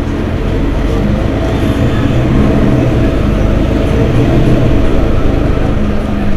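Mercedes-Benz Citaro Facelift city bus engine running with the bus at a standstill: a steady low rumble that gradually grows louder.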